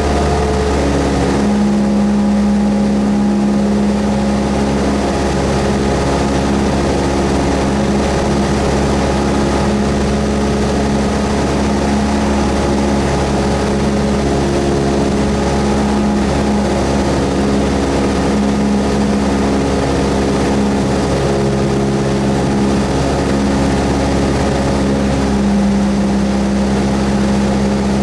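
Cessna 172S's four-cylinder Lycoming piston engine and propeller running in a steady drone.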